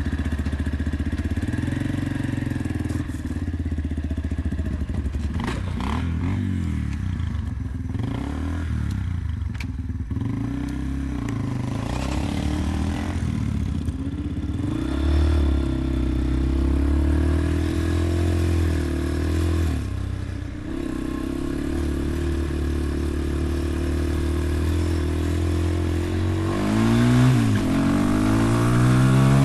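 Dirt bike engine running as the bike is ridden, its pitch rising as it revs up near the end.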